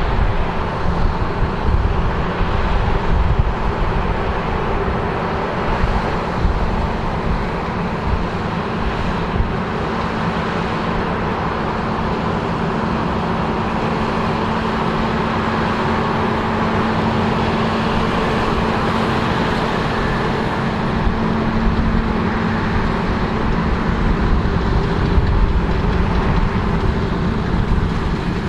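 New Holland combine harvester running steadily while harvesting barley: a constant machine drone with a low rumble underneath.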